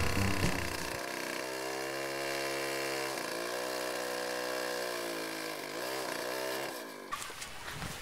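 Chainsaw cutting a log, its engine pitch dipping twice as it takes the load, then cutting off suddenly about seven seconds in. Music fades out in the first second.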